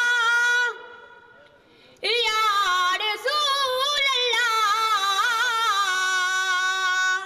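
Unaccompanied naat recitation: one high solo voice holding long, ornamented, wavering notes, stopping for about a second near the start and then sustaining a long melismatic line.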